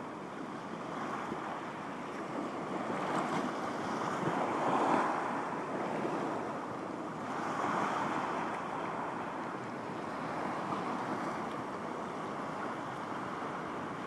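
Shallow seawater washing over a reef flat and lapping at the sand, a steady rush that swells twice and eases.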